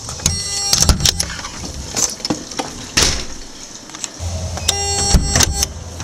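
Buzzer of a home-built RFID door-lock reader sounding twice, about half a second each, near the start and again about five seconds in, signalling that the card has been read and the electric strike released. Clicks and knocks of the door being handled and pushed open come in between.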